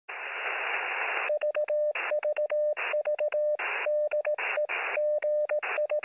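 Morse code heard through a radio receiver: a single pitched tone keyed on and off in short and long elements (dits and dahs), with static hiss rising in the gaps between characters. It opens with about a second of static alone.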